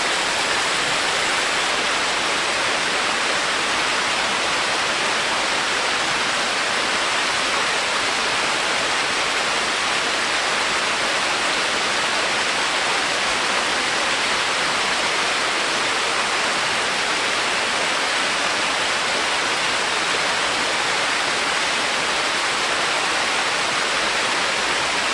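Waterfall rushing: a steady, loud wash of falling water that doesn't change.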